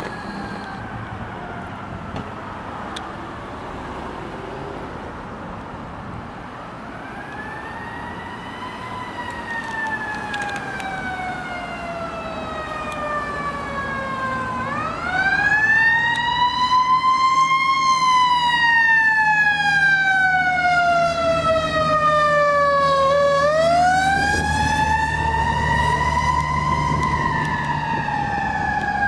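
Fire truck siren wailing in slow sweeps, each a quick climb followed by a long fall, from a fire department quint responding on a call. It grows louder about halfway through as the truck draws near, with its engine running underneath as it passes.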